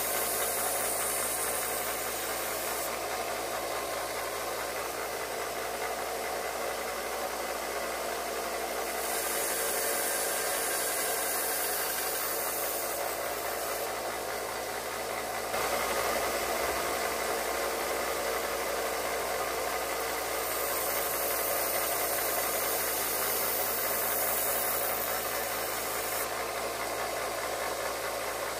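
Electric shop grinder running steadily, with a constant motor hum under a hiss that shifts every few seconds as the knife blade is worked against it.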